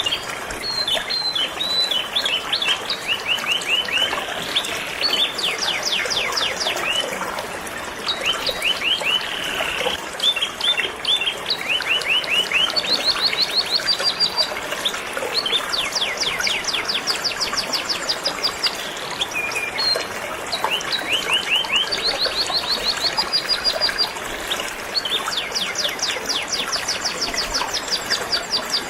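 Canary singing long, rapid trills of repeated high notes, phrase after phrase with hardly a break, over the steady rush of flowing river water.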